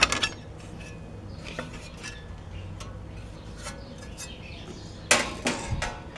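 Sharp metallic clanks and rattles from handling the metal band saw's parts while checking the blade on its wheels: one right at the start and a louder cluster about five seconds in.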